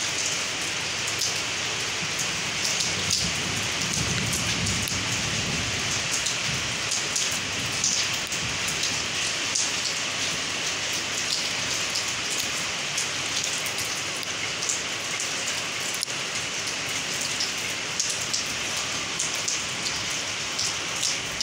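Steady rain falling on a wet concrete yard and into a brim-full plastic water barrel, with many small drop ticks. A brief low rumble comes through about four seconds in.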